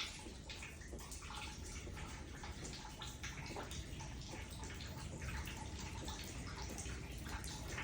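Storm water leaking through the ceiling, dripping and splashing irregularly, over a steady low rumble.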